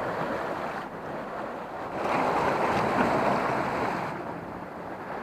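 Sea surf washing against coastal rocks, a surge swelling about two seconds in and easing off near the end.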